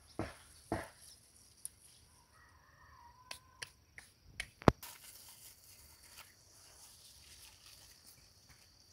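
Outdoor farmyard sounds: a few soft knocks in the first second, a faint short call, and a sharp click about halfway in, then a steady high hiss.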